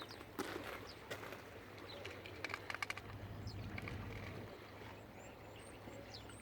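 Outdoor waterside ambience: scattered sharp knocks and a quick run of clicks, thin high bird chirps, and a steady low hum underneath.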